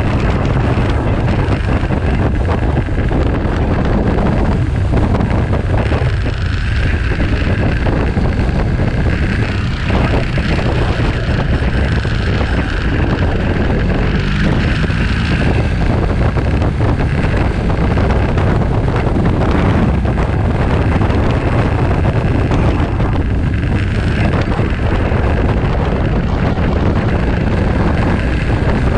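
Wind rushing loudly over the microphone of a camera on a moving motorcycle, with the bike's engine running underneath.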